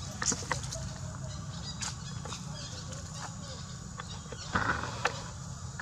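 Long-tailed macaque giving one short call about three-quarters of the way through, with a few sharp ticks scattered before it, over a steady low rumble.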